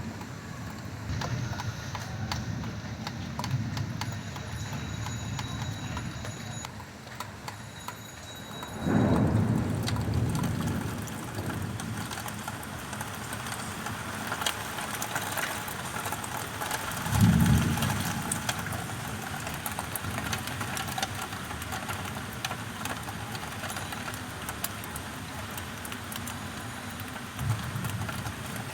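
Heavy monsoon rain falling steadily, with many drops pattering on nearby surfaces. Two loud low rumbles stand out, about nine and seventeen seconds in.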